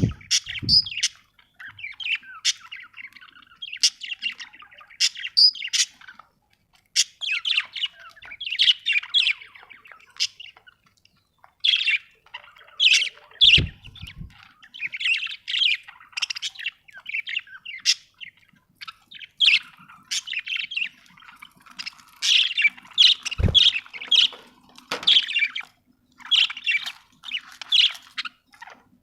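Budgerigars chirping and chattering continuously in quick short calls, with a few dull low thumps, once about halfway and once later on.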